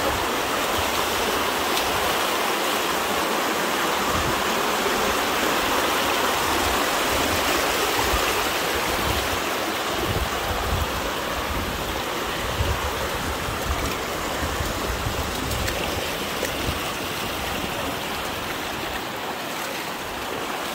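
Shallow mountain river rushing steadily over rocks and small rapids.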